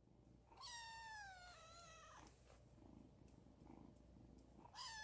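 A cat meowing: one long meow that falls in pitch, starting about half a second in and lasting nearly two seconds, then a second meow starting near the end.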